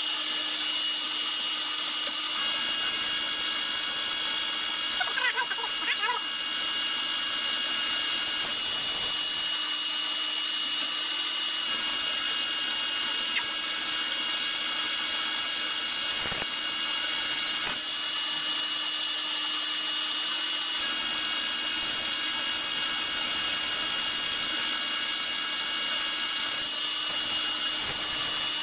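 Metal lathe running under power while it takes a facing cut across a spinning aluminum workpiece. The spindle and drive give a steady high whine over a hiss of cutting noise.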